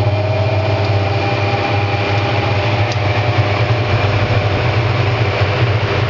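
Hoover 200M top-loading washing machine on spin, its empty drum turning with a steady motor hum and whir. The spin is working as it should.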